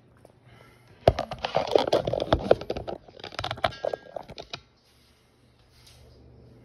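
Handling noise of a phone being set up and propped in place: a run of knocks, scrapes and rubbing right on the microphone for about four seconds, stopping about two-thirds of the way in, followed by faint room tone.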